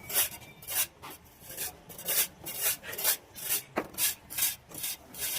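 A plastering float is being drawn back and forth over wet cement plaster in the 'water patti' finishing stage, giving repeated rasping, scraping strokes about two a second.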